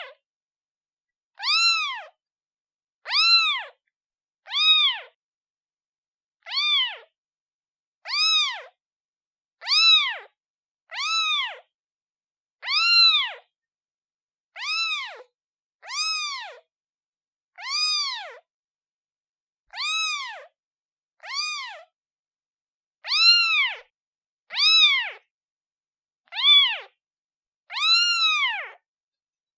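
Newborn kitten meowing repeatedly, calling for its mother: short high-pitched cries, each rising then falling in pitch, about one every one and a half to two seconds with silence between.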